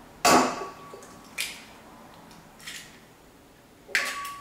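Eggs being cracked open: a sharp knock of eggshell against a bowl about a quarter second in, then a few fainter taps and knocks, the first and last followed by a short ringing tone from the bowl.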